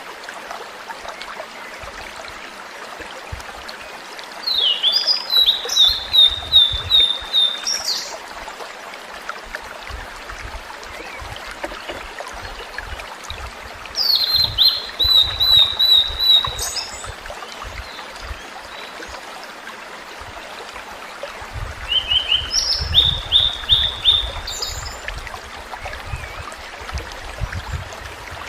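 A tledekan laut (blue-and-white flycatcher) singing three flute-like song phrases, each a quick run of repeated clear notes. They come a few seconds in, in the middle, and near the end, over a steady rushing background like running water.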